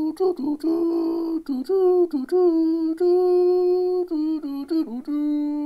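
A single voice humming a slow tune, holding each note for up to about a second with short breaks and slides between the notes.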